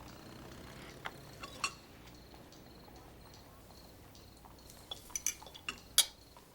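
Scattered light clinks of tableware: two about a second and a half in, then a quick run of clinks in the last two seconds, the loudest near the end.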